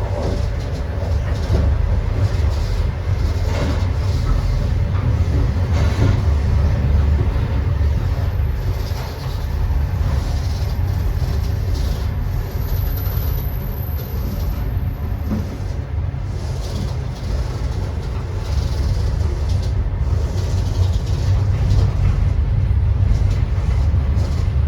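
Passenger train running on the rails: a steady, heavy low rumble with occasional knocks from the wheels and cars.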